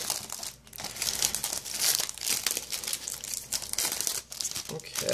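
Plastic shrink wrap being peeled off a DVD case and crumpled in the hands: a crackly, stop-start crinkling with a couple of brief pauses.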